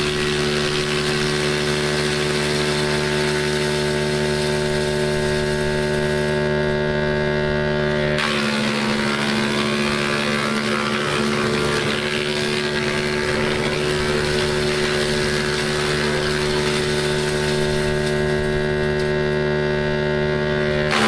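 Stationary electric wood crusher (11 kW, 400 V) running steadily, its rotor giving a hum of several steady tones over a rush of wood chips blowing out of the discharge chute. About eight seconds in its tone changes as the machine takes on branches.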